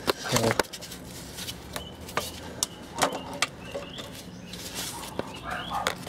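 Scattered sharp clicks and knocks of a gearshift cable's rose-joint end being worked off and back onto the gearbox shift linkage, with handling noise of the camera.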